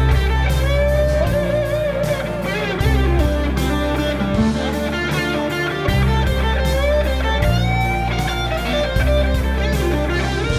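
Live band playing blues-rock: a semi-hollow electric guitar takes a lead solo with bent, wavering notes over sustained low bass notes and a steady drum beat.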